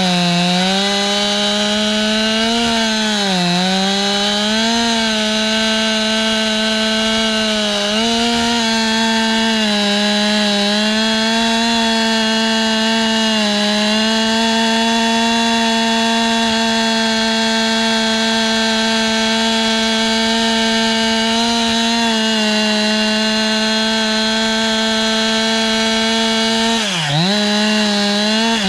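Two-stroke chainsaw held at full throttle while milling a log lengthwise. Its pitch sags briefly a few times as the chain loads up in the cut, and near the end it bogs down sharply before climbing back to full revs.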